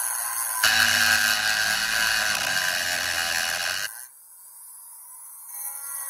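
Small rotary grinder grinding into the soldered hinge joint of a Zippo lighter case. It starts about half a second in and stops abruptly near four seconds in.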